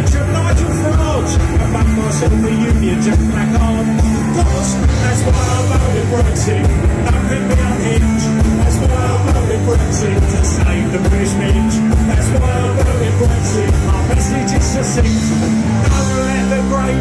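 Live punk rock band playing loud and steady: electric guitars, bass guitar and a drum kit, with the singer shouting the vocal into the microphone.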